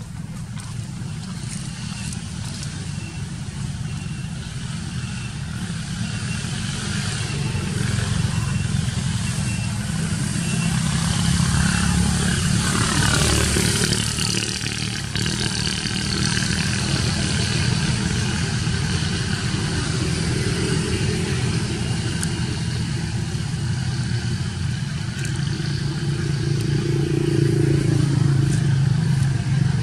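Engine noise of passing motor vehicles, a low hum that swells to its loudest about halfway through with a falling whine as one goes by, then builds again near the end.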